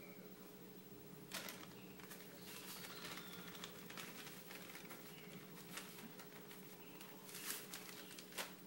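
Hands working cassava starch in a plastic bowl while more starch is poured from a crinkly plastic packet: scattered light rustles and clicks with a few sharper crinkles, about a second and a half in and again near the end. A steady faint hum sits underneath.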